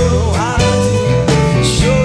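A blues band playing an instrumental passage, led by a harmonica that holds and bends notes over guitar and drums, with a cymbal hit near the end.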